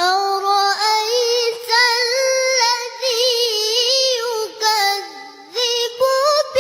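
A high voice chanting in melodic Quran recitation style: long held notes with wavering, ornamented pitch, broken into several short phrases, dipping lower about five seconds in.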